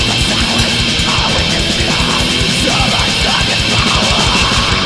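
Black metal band playing: rapid drumming under a dense wall of distorted electric guitar, in a raw demo recording.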